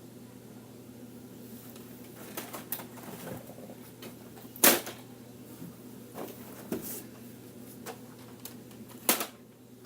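Toy guns being handled: a handful of scattered plastic clicks and clacks, the loudest about halfway through and another near the end.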